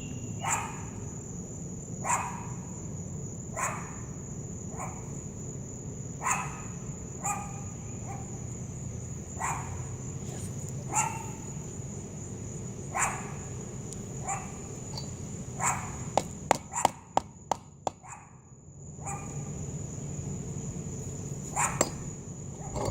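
Dog barking in single barks about every second or two. About two-thirds of the way through there is a quick run of sharp clicks or knocks.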